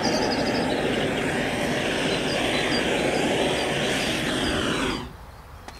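Bottled-gas blowtorch burning with a steady rushing flame noise, cutting off suddenly about five seconds in. It is being played over bitumen painted on timber to melt it into the wood.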